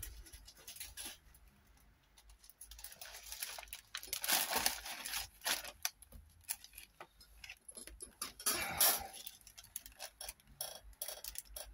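A clear plastic bag rustling and crinkling as it is handled, in two longer spells, with small clicks and taps in between.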